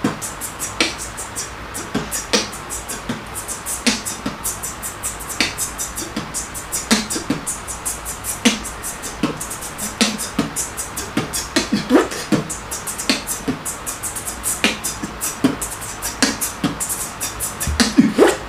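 Background music with a steady beat: sharp, crisp ticks several times a second and a heavier hit about every one and a half seconds, with no singing.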